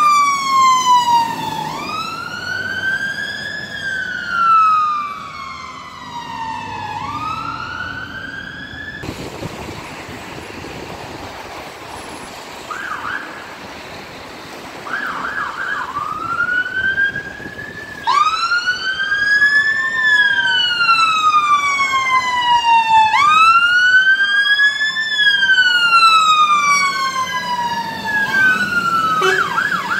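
UK fire engine sirens sounding a slow wail that rises and falls about every three seconds, with a few short fast yelp bursts in a quieter stretch partway through. Near the end one siren switches to a fast yelp as the appliances pull out on a call.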